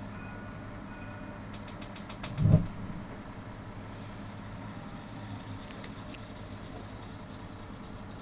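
City bus engine running steadily, with its reversing warning tones sounding faintly in on-off pulses until about a second and a half in. Then a quick run of sharp clicks ends in a loud low thump, the loudest sound.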